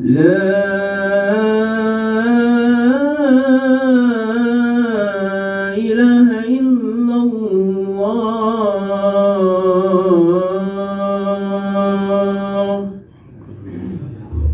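A man's voice chanting one long, ornamented phrase of the adhan, the Islamic call to prayer, the pitch bending up and down. It stops about a second and a half before the end.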